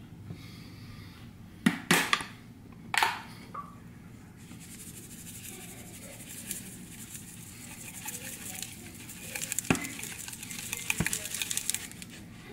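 A few sharp knocks in the first three seconds, then a seasoning shaker shaken over a plastic bowl, its granules rattling out with a fine, steady hiss from about four seconds in, broken by a couple more light knocks.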